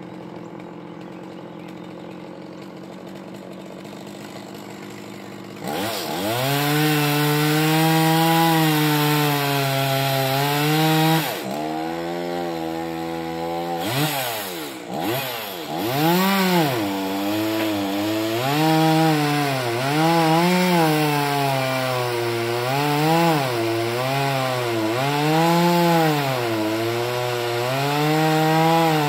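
Chainsaw idling, then opened up about six seconds in and cutting into the tree trunk, its engine pitch dipping and rising again and again as the chain loads up in the wood, with a couple of brief drops back toward idle partway through.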